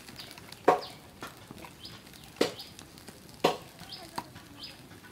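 Three sharp knocks, each with a short ring, spaced one to two seconds apart, over faint high bird chirps.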